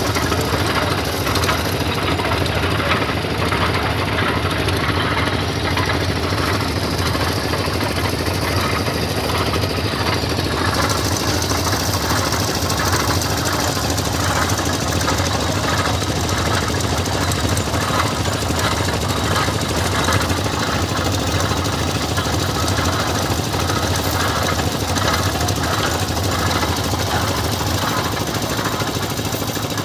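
Skid-mounted multi-cylinder engine driving a piling rig's winch, running steadily with a rapid, even beat.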